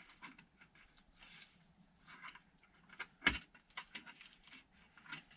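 Faint clicks and rustles of hands fiddling with a part of the fish finder gear that won't lift up, with one sharper click about three seconds in.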